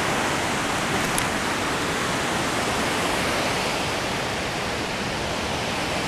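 Steady rush of water pouring over a low-head dam spillway into a shallow river.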